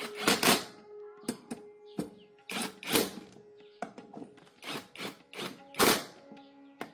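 Irregular clicks, taps and knocks of hard parts and tools being handled, one or two a second and uneven in strength, over faint background music.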